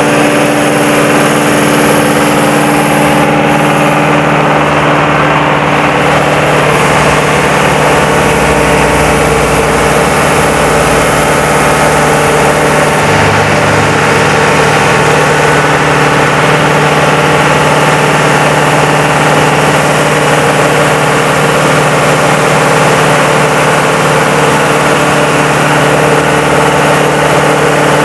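4JB1T four-cylinder turbodiesel engine of a fire-hydrant pump set running steadily and loudly, still warming up from a cold start.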